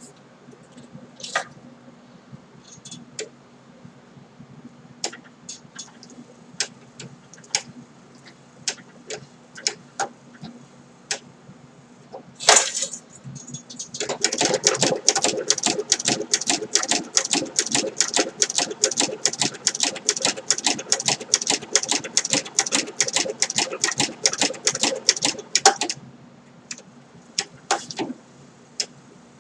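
Singer 7-34 sewing machine stitching leather: scattered clicks and knocks for the first half, then a steady run of quick, even needle strokes lasting about twelve seconds, ending with a few more clicks.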